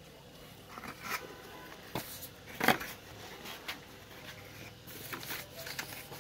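Rustling, crinkling and scraping of packaging as a keyboard is unwrapped in its cardboard box, with a few sharp crinkles and knocks, the loudest about halfway through.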